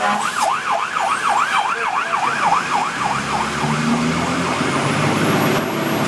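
Fire engine's electronic siren in a rapid yelp, about four sweeps a second, heard from inside the cab over the truck's engine and road noise. The yelp slows and fades after about three seconds, and a lower rising tone comes in about four seconds in.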